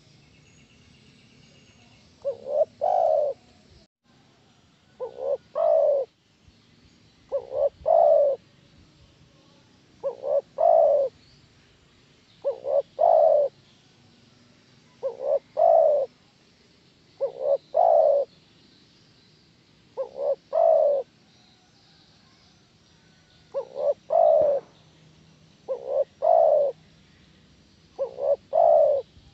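Spotted dove cooing: a phrase of two short notes and a longer coo, repeated eleven times about every two to three seconds.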